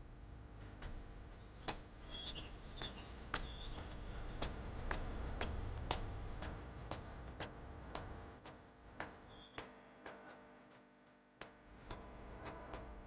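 Footsteps at a steady walking pace, about two sharp steps a second, with a few brief bird chirps.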